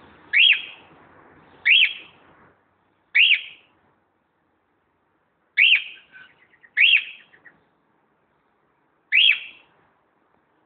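Cockatiel calling: six short, loud whistled calls, each rising and falling in pitch, spaced a second or two apart with a longer gap in the middle.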